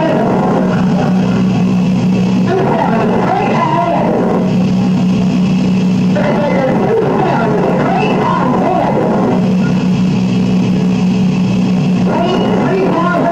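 Rock music soundtrack over a steady low drone.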